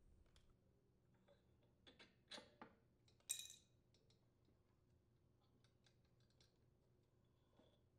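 Near silence with a few faint, light clicks of small metal parts being handled, a cluster about two seconds in and a slightly louder one a little after three seconds, as the carburetor gaskets and spacer are slid off the mounting bolts.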